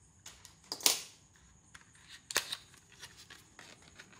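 A small cardboard box being handled and its flaps pulled open by hand: a few sharp crackles and rustles of cardboard. The loudest comes about a second in and another near two and a half seconds.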